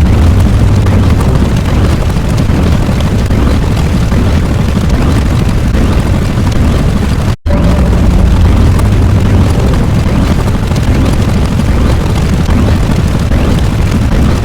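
Loud, continuous rumbling sound effect, heaviest in the bass, like a drawn-out explosion. It cuts out for an instant about seven seconds in and then carries on unchanged, as a repeating loop.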